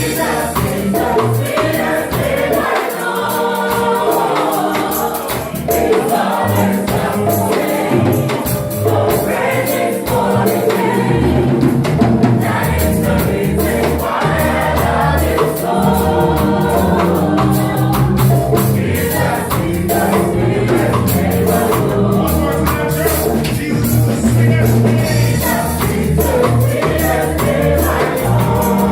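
Live gospel worship music: a choir singing over a band with bass and drums.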